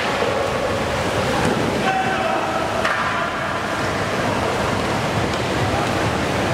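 Canoe polo in an indoor pool hall: kayak paddles splashing and boats churning the water under a steady wash of hall noise, with a few brief shouts from the players about two and three seconds in.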